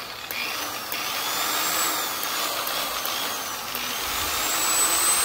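Stanley electric polisher running free with a foam pad, set to speed 5: a steady motor whir with a high whine that wavers up and down at first, then holds steady from about halfway through.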